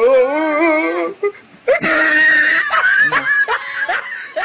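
A person's drawn-out, wavering wordless wail or whine, then a second, higher-pitched drawn-out cry from about two seconds in.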